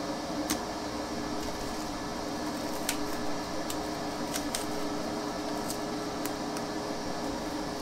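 Steady machine hum with several held tones, with scattered sharp crackles about ten times as crispy, freshly baked bread is broken by hand over the mash.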